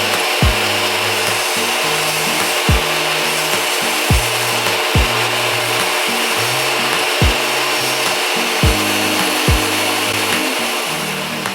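Bosch table saw running and cutting through plywood, a steady loud noise, with background music over it: a stepping bass line and a kick drum about once a second.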